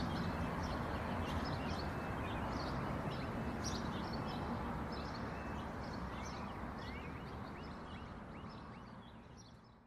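Steady rush of river rapids, with small birds chirping repeatedly over it. The whole fades out near the end.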